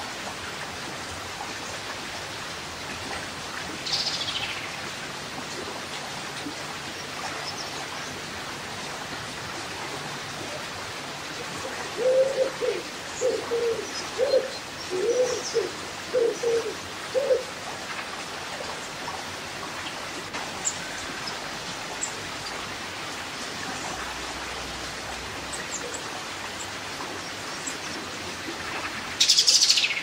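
River water rushing steadily over rocks, with birds calling over it: a falling whistle about four seconds in, a run of about seven short, low calls in the middle, scattered faint high chirps, and another loud falling call near the end.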